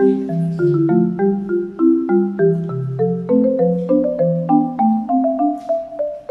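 Background music: an upbeat tune of quick, short struck notes in a marimba-like mallet-percussion sound over a lower bass line.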